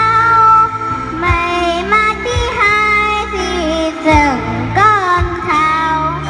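A young girl singing a Vietnamese children's song into a handheld microphone, amplified, over instrumental accompaniment with a bass beat about once a second.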